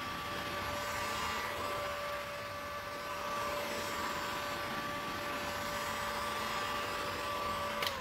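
Corded heat gun running steadily, its fan blowing with a steady whine while it shrinks a heat-shrink clamp onto a coolant hose. Near the end it is switched off and the whine falls away as the fan spins down.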